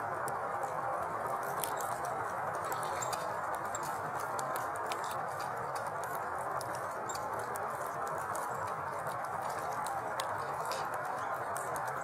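Steady patter of rain or wet snow, with scattered sharp ticks of individual drops.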